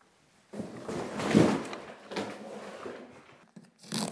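Rustling and crinkling of plastic air-cushion packaging and cardboard as the wrap is pulled off a printer, loudest about a second and a half in. Near the end, a short rip of adhesive tape being peeled off the printer's panel.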